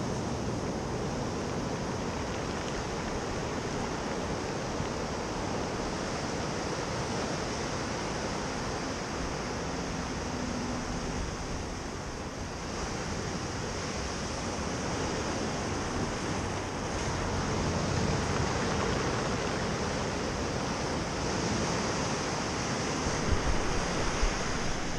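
Ocean surf breaking and washing up a pebbly beach, a steady rush of water that swells louder as bigger waves come in. A few handling knocks on the camera near the end.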